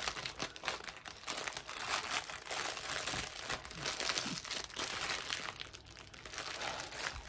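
Clear plastic bag of small diamond-painting drill packets crinkling and crackling as it is folded over and pressed flat by hand.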